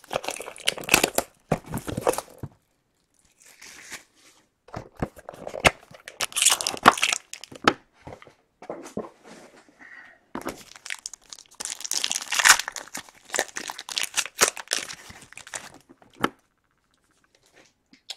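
Wrappers of 2015 Panini Playbook football card packs being torn open and crinkled by hand: irregular bursts of ripping and crackling with short pauses between, ending a couple of seconds before the end.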